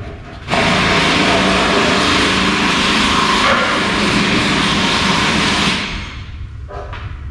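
Loud rush of compressed air, about five seconds long, starting abruptly about half a second in and tailing off near the end, typical of an air blow gun blasting out bolt threads before thread sealer goes on.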